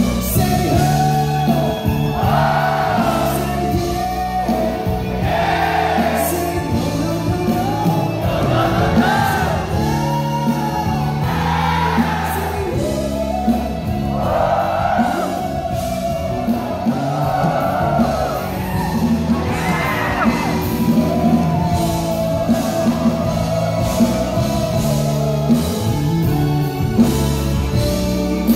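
A male ballad singer singing live into a microphone over a live band, his voice gliding and holding long notes.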